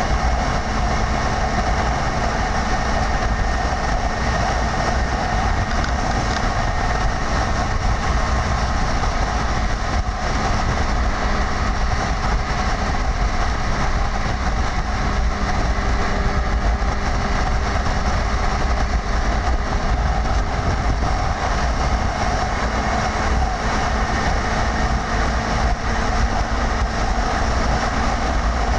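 Steady wind and road noise from a vehicle moving at speed, with a low engine drone underneath.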